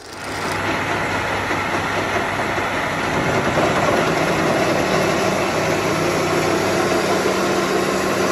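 Metal lathe running steadily as it cuts open the welded shell of an Aisin K114 CVT torque converter, a steady machining noise over a low motor hum.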